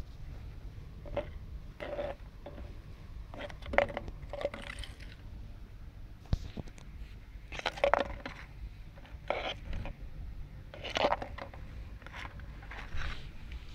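Thin plastic water bottle crackling and crunching in short, irregular bursts as a cat paws and bites at it.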